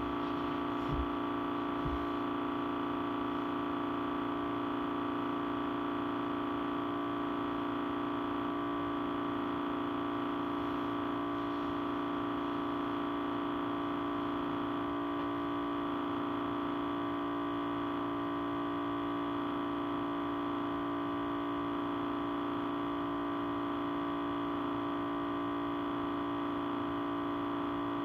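Audio feedback: a steady, unchanging ring of several held tones at once, the strongest low and a higher one above it. A couple of faint clicks come in the first two seconds.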